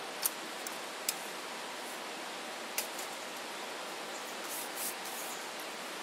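A small folding metal camp stove being handled and set down, giving a few sharp clicks in the first three seconds, over a steady hiss.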